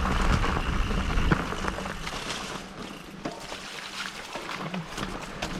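Riding noise from an e-mountain bike on a dirt trail: wind rumbling on the microphone, heaviest in the first couple of seconds, with tyres on the trail surface and frequent small clicks and knocks of the bike rattling.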